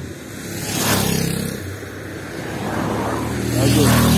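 Motor vehicles on a road: an engine running steadily, with two loud swells as vehicles rush past, one about a second in and a louder one near the end.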